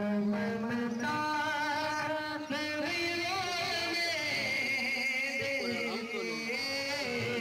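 Male voice chanting a devotional recitation in long melodic notes with a wavering pitch.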